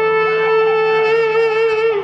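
Marching band holding one long, loud note in unison on winds and brass, which sags in pitch and cuts off near the end.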